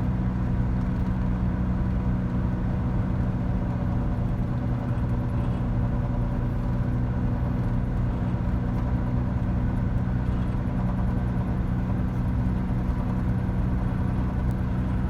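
VW Bus engine running steadily while driving, with road noise, heard from inside the cabin.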